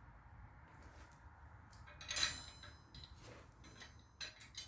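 Faint clinks and taps of steel press parts and hardware being handled and fitted together, the loudest about two seconds in with a short metallic ring, and a few quick clicks near the end.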